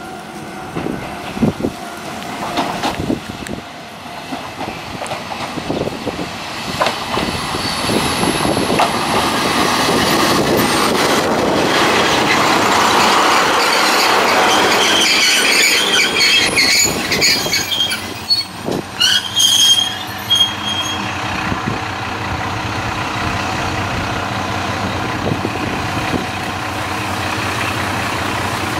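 Kanto Railway KiHa 2400-series diesel railcar running close past: diesel engine and wheels on the rails, loudest about halfway through. High brake and wheel squeal follows as it slows to a stop, then the diesel engine idles steadily.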